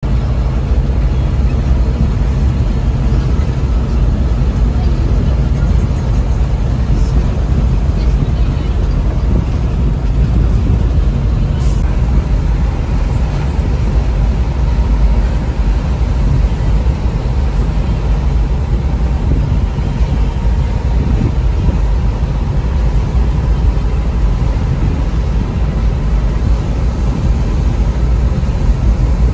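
Fire truck's engine and road noise heard from inside the cab while driving: a steady low rumble, with a faint steady whine above it and a single click about twelve seconds in.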